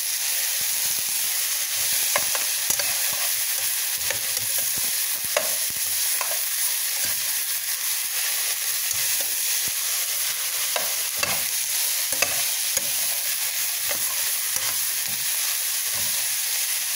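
Pork, cabbage and carrots sizzling as they fry in a pan, nearly cooked, with scattered clicks and scrapes of stirring.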